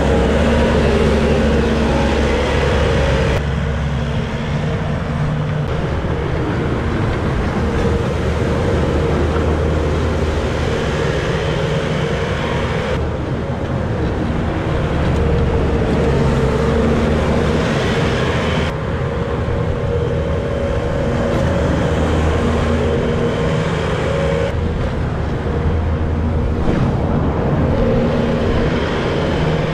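Bobcat skid-steer loader's diesel engine running steadily under load as it pushes snow with a front plow. The sound shifts abruptly several times.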